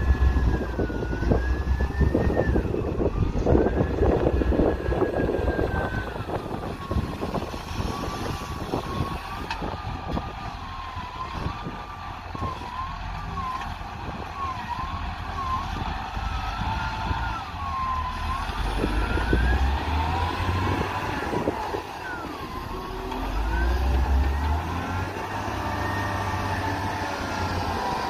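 Caterpillar wheel loader working: its diesel engine revs up and down, with a whine that rises and falls in pitch as the engine speed changes. Heavier rushing and clattering in the first several seconds, as a bucketload of sand is dumped into a dump truck.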